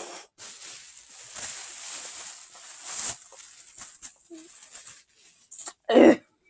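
Noisy, sputtering breathing from a person with a mouth packed full of marshmallows who is close to choking, ending in a short loud gag or cough about six seconds in.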